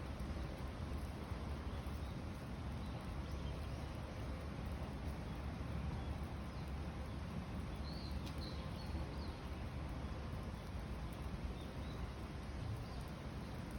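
Steady rain falling outdoors, an even hiss over a low rumble, with a few faint high chirps about eight seconds in.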